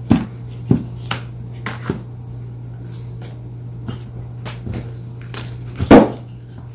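Cardboard product boxes being handled: a series of knocks and taps, with the loudest thump about six seconds in, over a steady low hum.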